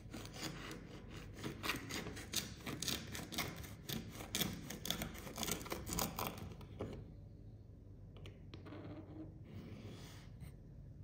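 Paring knife scraping across the rim of a metal mold packed with kinetic sand, slicing off the excess with a gritty, crunching rasp of many quick strokes. The scraping is dense for about the first seven seconds, then turns softer, with a few faint scrapes near the end.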